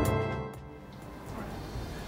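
Theme music fading out within the first half second, leaving faint low background noise.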